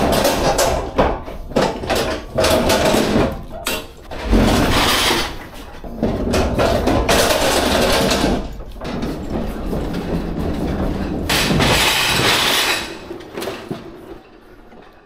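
Manual pallet jack rolling a loaded, shrink-wrapped pallet of racked glassware and dishes across the truck floor, the wheels and load clattering and rattling, with a heavy thump about four seconds in. It gets quieter over the last couple of seconds.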